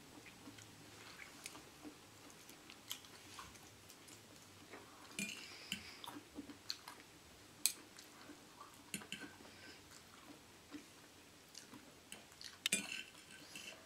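Quiet eating sounds: chewing, with scattered sharp clicks of a knife and fork against a plate, the loudest clatter near the end and another about halfway through.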